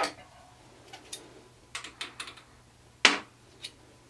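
Irregular light metal clicks and clinks of hand tools and small parts being picked up and set down on a steel workbench, the loudest about three seconds in.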